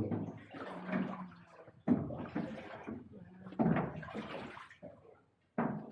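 Oars of a small rowing boat dipping and pulling through the water, a splash and slosh about every two seconds, four strokes in all.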